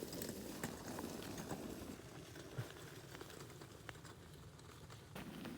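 Faint footsteps over rough ground, with scattered small clicks and rustling.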